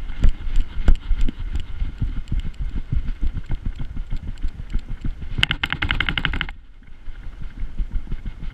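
A GoPro strapped to a running beagle, knocking and jostling with each stride: rapid, irregular low thuds. About five and a half seconds in comes a second-long burst of rapid higher-pitched rattling.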